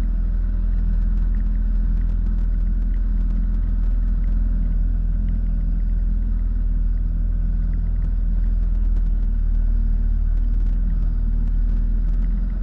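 Jet ski engine running at a steady speed, a loud, even rumble that holds one pitch throughout.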